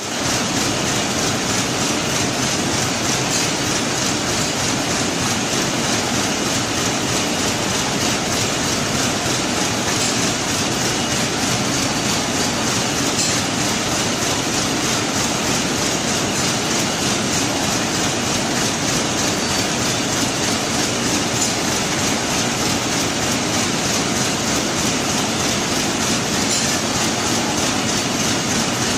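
Warp knitting machine running at speed as it knits balcony-screen net, a loud, steady, very fast mechanical clatter that never lets up.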